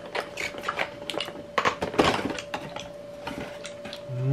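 Irregular light clicks and clatters of small hard objects being handled and set down, with a faint steady tone underneath.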